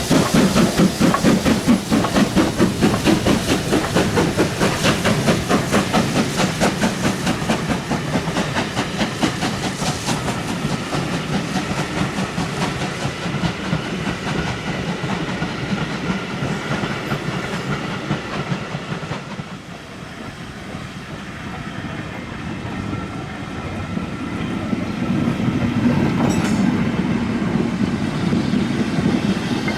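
Steam-hauled train running past with a fast rhythmic clatter. It fades away about twenty seconds in, then grows louder again near the end.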